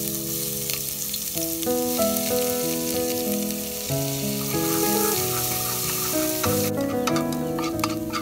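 Chopped garlic, shallots and red chili sizzling as they are tipped into hot oil in an aluminium pot. The sizzle drops away about six and a half seconds in, giving way to sharp clicks of a wooden spatula stirring against the pot. Background music plays underneath.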